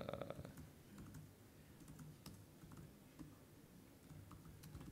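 Faint typing on a laptop keyboard: scattered, irregular key clicks.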